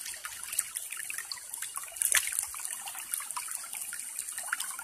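Water of a shallow stream trickling over stones, a fizzy, crackling running sound that grows louder for a moment about two seconds in.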